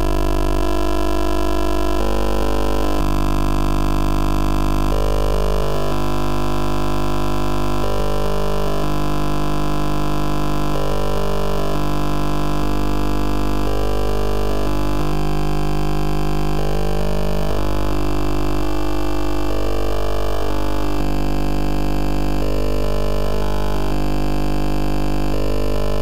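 Electronic synthesizer music: dense sustained tones and drones whose lower notes shift every second or two, at a steady level.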